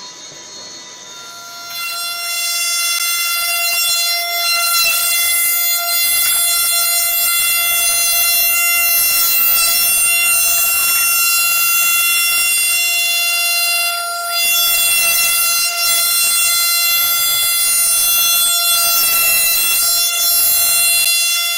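CNC router running with a loud, steady high-pitched whine with many overtones, which swells up about two seconds in and holds one pitch, with a couple of brief dips in the middle.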